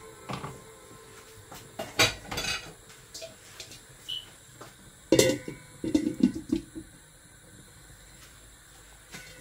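Kitchen utensils clinking and knocking against metal pots and pans: a few sharp clinks about two seconds in, then the loudest strike and a quick run of knocks around five to six and a half seconds in.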